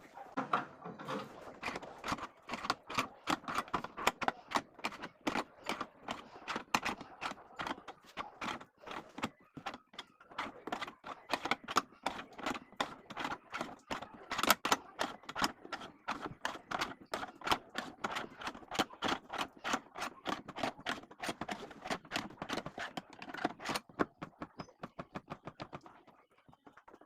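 A fast run of sharp clicks, several a second, from hand tools at work on a car wheel during a tyre change; the clicking stops near the end.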